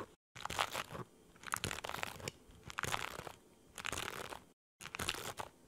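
Panini sticker packets crinkling and crackling as they are handled in a freshly opened box, in a run of irregular crackly rustles.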